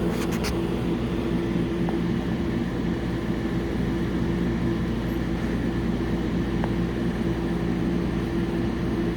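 A steady mechanical hum at a constant pitch, with a few faint clicks near the start.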